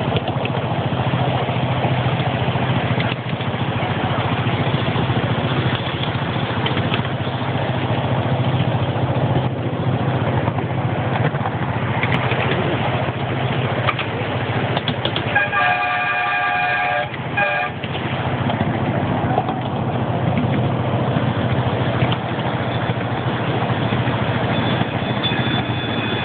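Miniature ride-on park train running, a steady engine drone with rattling from the cars, its horn sounding briefly in short toots about two-thirds of the way through.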